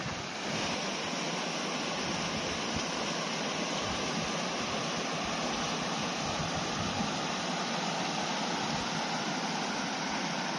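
Rocky mountain stream tumbling over boulders and small waterfalls: a steady, even rush of water.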